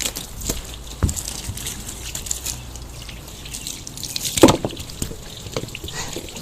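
Water from a running garden hose splashing and dripping, with irregular splatters and one louder sudden sound about four and a half seconds in.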